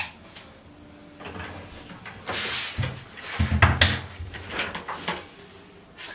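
Knocks, thuds and clicks of a shower enclosure's glass door and frame being handled during fitting. There is a sharp knock at the start, a short scraping hiss about two and a half seconds in, and a cluster of heavier thuds and clicks just after.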